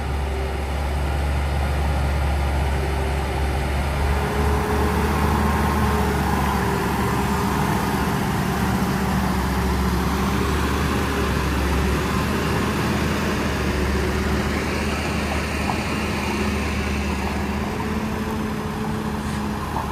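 Heavy diesel trucks, a loaded tipper and a DAF tractor unit hauling dump trailers, rolling slowly past on a dirt road with their engines running in a steady low drone.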